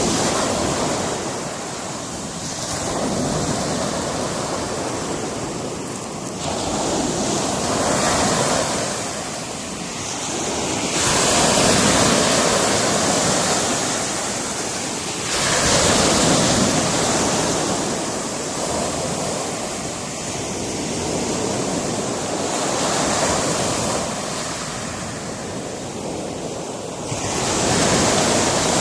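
Sea waves breaking and washing over a rocky shore, the surf rising and falling in swells every few seconds.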